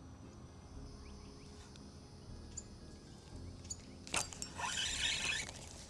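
A sharp click about four seconds in, then about a second of splashing at the water surface: a bass striking at the lure and missing.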